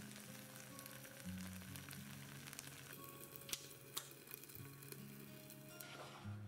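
Pot of cooked brown rice and canned mackerel crackling and sizzling over a gas flame, with scattered ticks and two sharper ones about halfway through. Soft background music with low held notes plays underneath.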